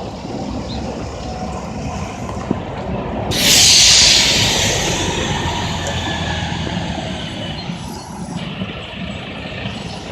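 Fire engine idling with a steady low rumble. About three seconds in comes a sudden loud hiss of released air, like an air brake, which fades away over the next few seconds.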